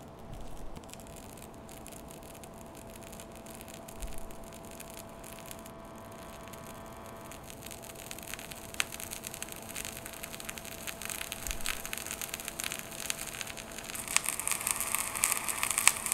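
Electronic static from a handheld microphone device held to a plant: steady hiss and a faint constant hum tone under irregular crackling, which thickens and grows louder near the end.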